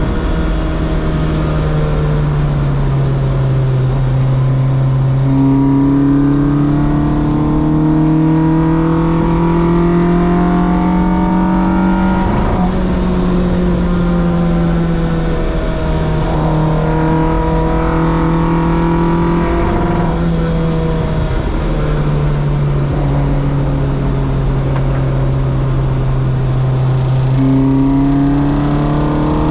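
Car engine pulling hard through the gears on a race circuit: its note climbs steadily, then drops back at each upshift, several times over, with constant road and wind noise underneath.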